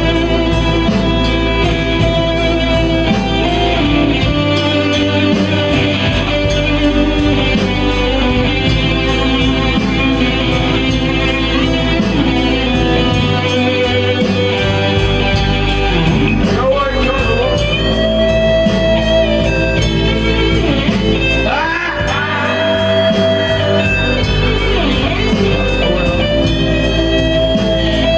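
Blues-rock band playing with no vocals: an electric guitar plays lead lines with bent notes over bass and a steady drum beat.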